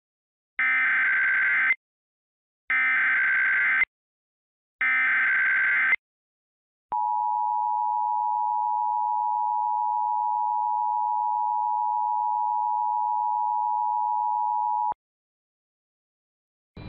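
Emergency Alert System alert opening: three SAME digital header bursts, each about a second long with a second's gap, then the two-tone EAS attention signal (853 and 960 Hz) held steady for about eight seconds before cutting off sharply.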